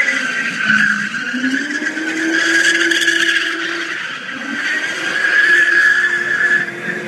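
Ford XA Falcon coupe doing a burnout: the engine is held at high revs, dipping briefly about a second in and climbing back, while the spinning rear tyres give a steady, continuous screech.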